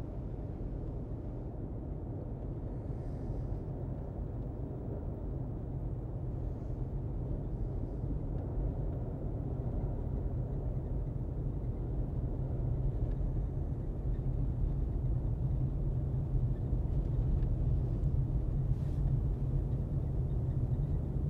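Steady low rumble of a car's engine and tyres on the road, heard from inside the cabin while driving, slowly growing louder.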